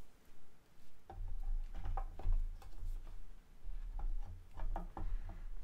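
Irregular light clicks and taps with low thuds as a statue's legs are worked down onto the pegs of its base, piece knocking and scraping against piece, starting about a second in.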